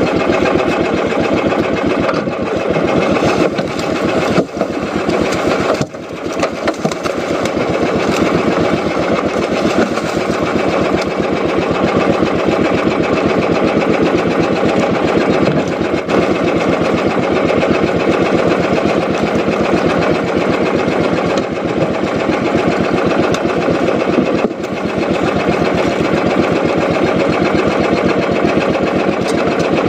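Small boat engine running steadily with a fast, even firing rhythm, its level dipping briefly twice a few seconds in.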